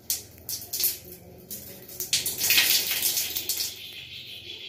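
Wet long hair squeezed and rubbed between the hands during a hair wash: a few short wet squishes, then a longer, louder wet rush of water about two seconds in.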